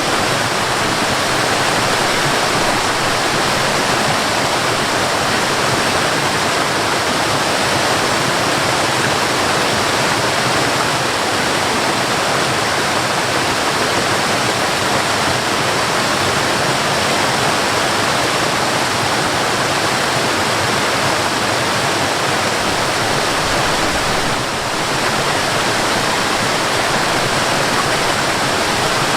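Mountain waterfall: water pouring and rushing in a steady, unbroken roar of noise. The level dips briefly once, about three-quarters of the way through.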